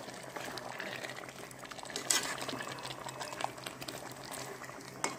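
A spoon stirring chicken pieces coated in masala in a metal pot: wet squelching and scraping, with scattered clicks of the spoon against the pot.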